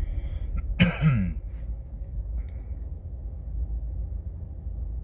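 Steady low road and engine rumble inside a 2019 Subaru Outback's cabin, with a person briefly clearing their throat about a second in.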